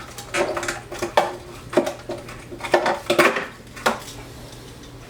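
Old aquarium light mounting clips clinking and clattering as they are handled and taken off: a quick string of sharp knocks, some with a brief ring, dying away after about four seconds.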